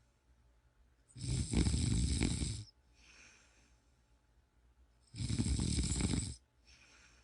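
Snoring: two loud snores about four seconds apart, each lasting over a second, with a softer breath following each one.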